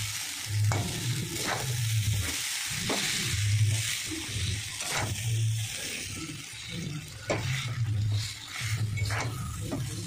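Chow mein noodles stir-frying in a hot pan with egg and onion: a steady sizzle while a metal spatula scrapes and tosses them, clicking against the pan every second or so.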